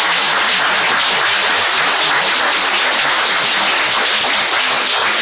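Audience applauding: many hands clapping in a dense, steady patter that holds its level throughout.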